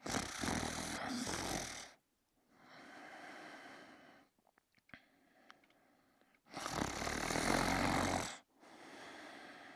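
Sleeping dachshund snoring: two loud snores about six and a half seconds apart, each followed by a softer, longer breath.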